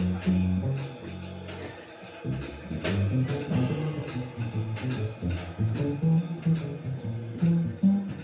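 Live jazz combo playing: an upright bass walking through low notes under a drum kit keeping time on the cymbals, with keyboard and harmonica.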